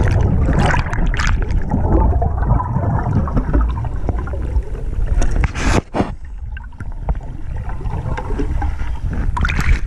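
Scuba regulator exhaust bubbling and rushing past an underwater camera, a dense low rumble with gurgling. It eases about six seconds in and builds again near the end. The heavy bubbling fits a free-flowing regulator, which the instructor later says the diver had.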